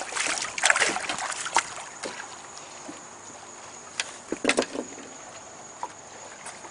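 Water splashing and sloshing at the side of a small boat in the first second and a half, then a few sharp knocks against the boat about four seconds in.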